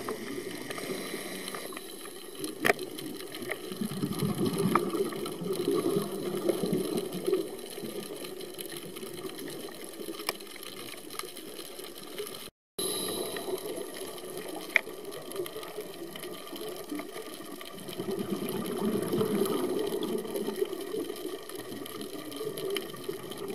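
Underwater sound of scuba divers breathing: regulator exhaust bubbles swelling and fading every few seconds over a steady muffled hiss, with a couple of sharp clicks.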